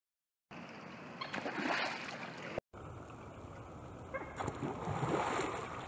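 A rushing transition sound that swells and fades. After a brief cut it gives way to steady outdoor noise of wind and water on the microphone, with no distinct event.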